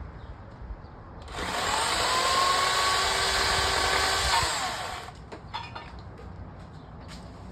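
Small electric chainsaw revving up about a second in, running steadily for about three seconds, then winding down, followed by a few light clicks.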